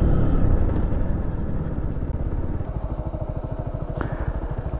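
A 125 cc scrambler motorcycle's engine, heard from the rider's own bike, easing off from higher revs to a low, pulsing putter as the bike slows.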